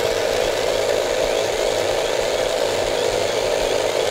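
Flying helicopter alarm clock running in its box: a steady mechanical buzz that does not let up.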